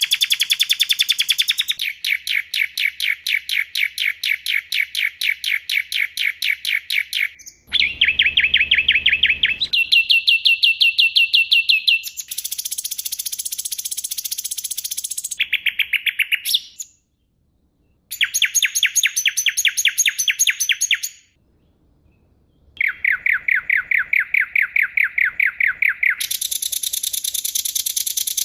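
Edited montage of songbird recordings: rapid runs of sharp, evenly repeated notes at several different pitches, the rapid-fire 'tembakan' phrases used as masteran song-tutoring material. The runs change abruptly every few seconds, with two brief silences in the second half.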